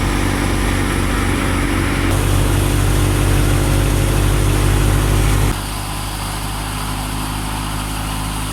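Tractor engine running at a steady speed. The sound changes abruptly about two seconds in and drops in loudness about five and a half seconds in.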